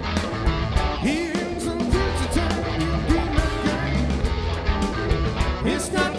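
Live rock band playing: drums keeping a steady beat under electric bass and guitars. From about a second in, a melody line swoops up into each of its notes.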